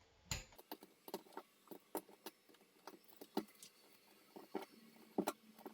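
Allen wrench working the set screw of a towel ring: a run of faint, irregular small clicks and taps, a few a second, as the key is turned in short strokes to tighten the screw.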